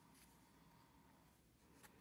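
Near silence: room tone, with the faint rustle of a picture-book page being turned.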